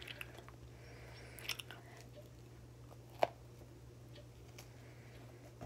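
Faint handling noises with small clicks, and one sharp tap about three seconds in, over a steady low hum.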